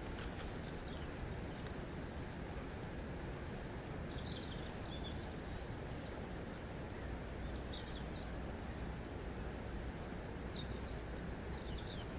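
Steady rush of running water, with small birds chirping now and then over it, most around the middle and near the end.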